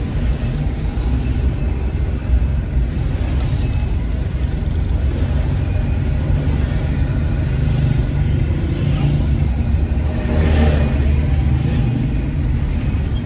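Steady low rumble of a vehicle on the move, engine and road noise heard from the vehicle being driven, with street traffic around it. A louder swell comes about ten and a half seconds in, as of a vehicle passing close.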